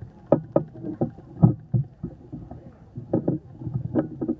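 Fireworks shells bursting in an irregular run of dull, muffled bangs, about two a second.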